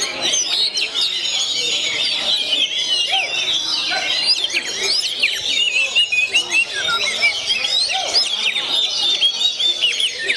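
Many songbirds singing at once: a dense, overlapping chorus of short high chirps, whistles and trills that never lets up.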